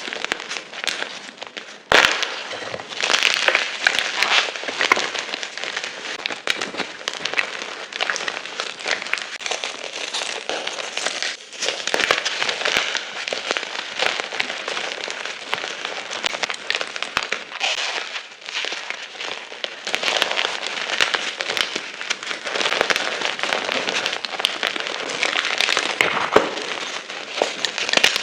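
Blocks and chunks of gym chalk being crushed and crumbled, a dense run of dry crunches and crackles. There is a short lull and then a sharp restart about two seconds in.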